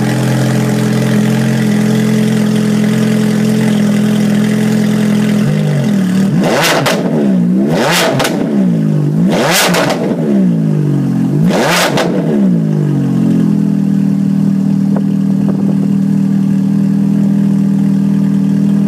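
Ferrari V8 idling through a one-off aftermarket 'F1 sound' muffler, then revved four times in quick succession, each rev climbing and dropping back, before it settles to a steady idle again.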